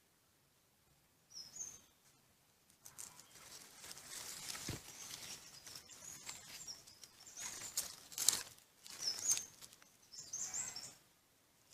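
Irregular bursts of rustling noise with a few short, high chirps from a small bird.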